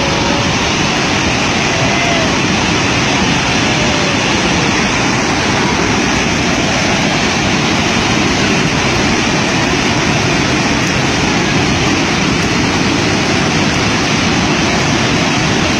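Floodwater of a swollen mountain river rushing past in a loud, unbroken wash of noise.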